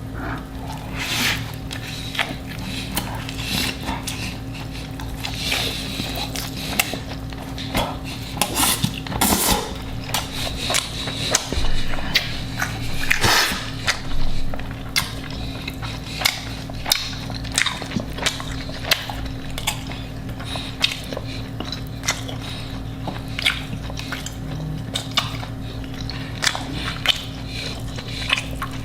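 Close-miked eating: irregular bites, crunches and wet chewing clicks, with now and then a knock of cutlery or a plate, over a steady low electrical hum.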